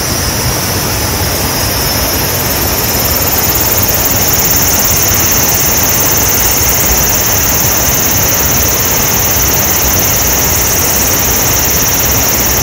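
Small waterfall pouring over rocks into a stream pool: a loud, steady rush of falling water that swells slightly over the first few seconds, then holds.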